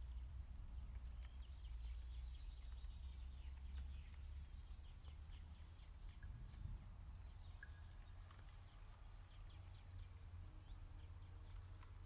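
A small bird singing faintly and repeatedly: a thin high held note followed by a quick run of short notes, about every two to three seconds, over a steady low rumble.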